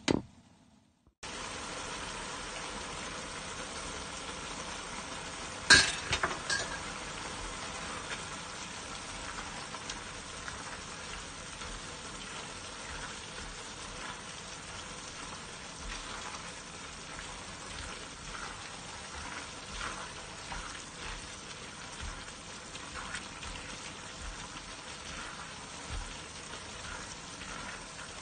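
Hairy gourd strips and glass noodles sizzling as they are stir-fried in a wok, with a spatula stirring and scraping through them. There is a sharp knock about six seconds in.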